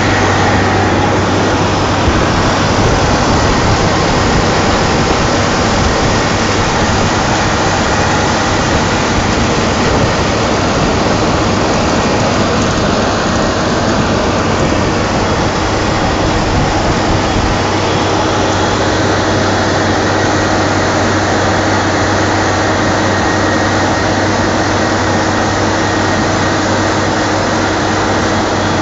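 Wirtgen 2100 DCR cold milling machine at work: its diesel engine running steadily under load while the cutting drum grinds up the road surface. A loud, continuous mechanical din with a constant low hum.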